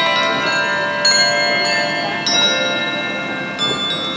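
A handbell choir ringing a Christmas carol: chords of several handbells struck together about once a second, each note ringing on.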